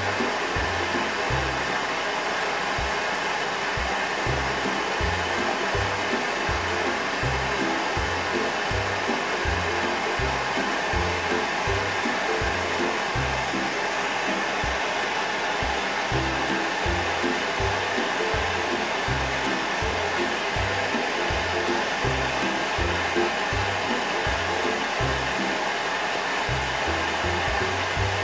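Steady hiss of a propane lampworking bench torch (Lopet burner, focused flame) burning continuously, with background music and a regular bass beat over it.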